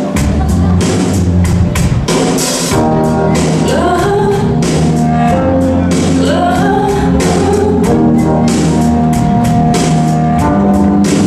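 A recorded song playing loudly for a dance routine: a singer's melody over a steady drum beat and bass.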